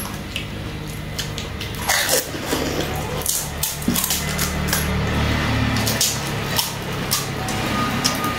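Crisp pani puri shells being cracked open with fingers and crunched while eating: a run of sharp clicks and crackles starting about two seconds in, over a steady low hum.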